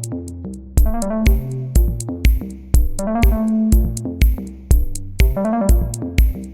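Instrumental electronic music: a drum-machine beat of about two kicks a second under bass and synth/keyboard chords, with quick rising note runs. The beat drops out at the start and comes back in just under a second in.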